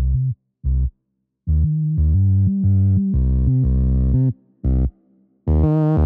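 Electronic background music with a heavy synth bass line, cutting out to complete silence several times for brief gaps before starting again.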